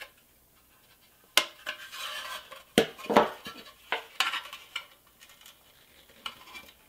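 A screwdriver clicking and scraping against the rusty pressed-steel cab of a 1960 Tonka toy truck as it pushes a headlight's plastic tabs together to free it. There is a sharp click about a second and a half in, a short scrape, then a run of irregular light metal clicks and knocks.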